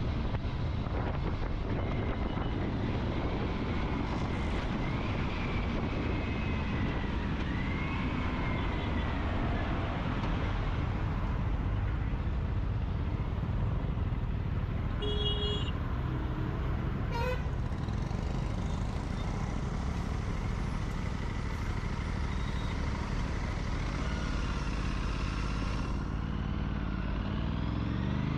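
Aprilia RS 457 parallel-twin running on the move, with a steady rush of engine and road noise, among traffic. A vehicle horn toots briefly about halfway through.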